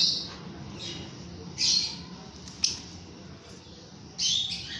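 Pet lovebird squawking: four short, shrill calls spaced a second or more apart, one of them a sharp single chirp, over a faint steady low hum.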